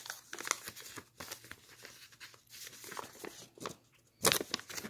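Paper instruction leaflet rustling and crinkling as it is picked up and handled, in a run of short irregular rustles with a louder one a little past four seconds.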